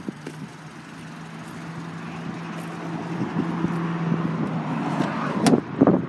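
Steady motor-vehicle engine hum with one held low tone, growing gradually louder and then dropping away. Near the end come two sharp clunks as a car door is opened.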